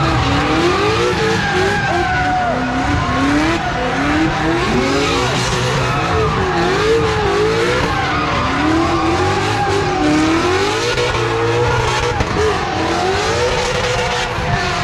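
Two drift cars sliding in tandem, their engines revving up and down over and over through the slides, with tyres squealing and skidding throughout.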